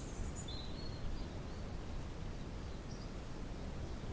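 Outdoor ambience: a steady low rumble with a few short, high bird chirps.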